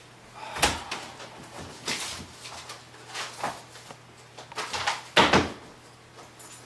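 Knocks and scrapes of things being handled at a wooden dresser, in irregular bursts, the loudest about five seconds in.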